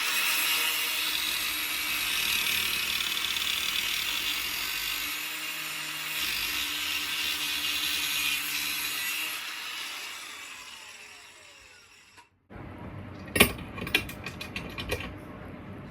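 Angle grinder cutting into the governor of a Honda GX110 engine, a loud steady hissing grind that trails off with a falling whine as the disc spins down. A few sharp metal clicks and knocks follow near the end.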